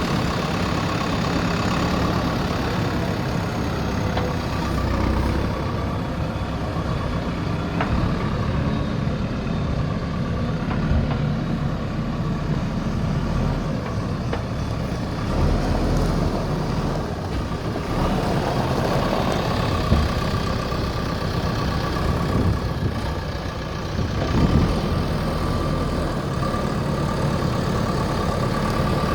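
Diesel engine of a JCB 3DX backhoe loader running steadily while it works. A few short knocks come through, and a steady high whine joins about two-thirds of the way in.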